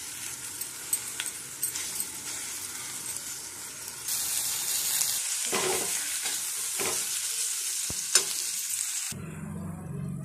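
Cluster bean and onion masala fry sizzling in a metal pan on the gas, with a metal spatula stirring and scraping through it in scattered clicks. The sizzle cuts off suddenly about nine seconds in.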